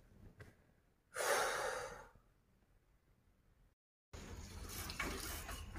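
One long breath out, about a second in, lasting about a second. From about four seconds in, steady outdoor noise with a bicycle being ridden.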